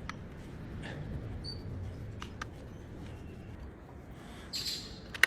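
Scattered small clicks and taps from handling the plastic parts of an intercom panel and its keypad board over a steady low background noise, ending in a sharp, louder click.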